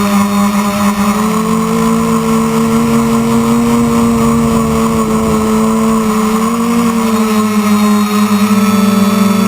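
Quadcopter's electric motors and propellers whining steadily in flight, the pitch shifting slightly about a second and a half in and again near the end.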